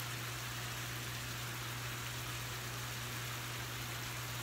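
Diced chicken sizzling steadily as it fries in a skillet, with a steady low hum underneath.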